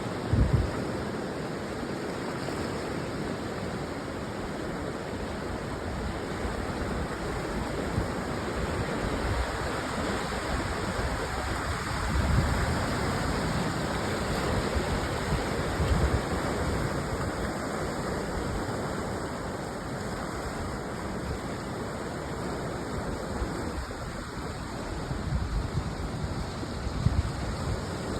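Ocean surf washing in a steady rush, with a few brief low gusts of wind buffeting the microphone.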